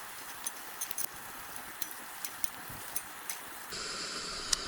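Food frying over a campfire: a steady sizzle with scattered sharp pops and crackles.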